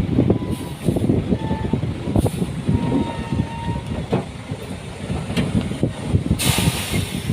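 Heavy earthmoving machinery working: an engine running beneath a dense, irregular clatter of knocks, with a short burst of hissing near the end.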